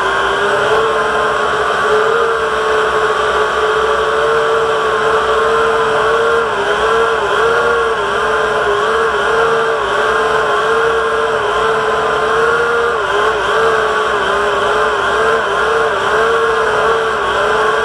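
Syma X8HW quadcopter's motors and propellers whining steadily, heard close up through the action camera mounted on the drone. The pitch dips briefly now and then, more often near the end.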